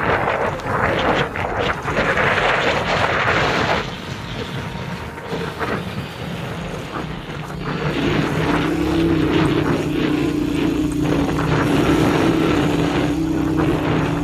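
Small motorcycle engine running while riding along a rough rural road. A rushing noise dominates the first few seconds, then a steady engine drone takes over about eight seconds in.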